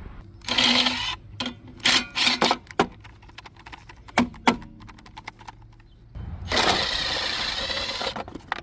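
Power impact wrench running in short bursts to break loose and spin off the wheel's lug nuts, with one longer run near the end, and sharp clinks of the socket and nuts between bursts.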